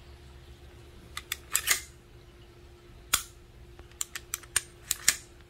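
Sharp metallic clicks of a 5.7×28mm pistol being dry-fired and its trigger worked to feel the reset. There are a few clicks about a second in, one loud snap near the middle, and a quick run of six lighter clicks near the end.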